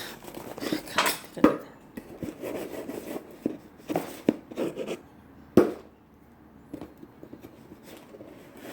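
A package being cut open with a knife: irregular scraping and scratching, with a few sharp knocks as the package is handled, quieter for the last few seconds.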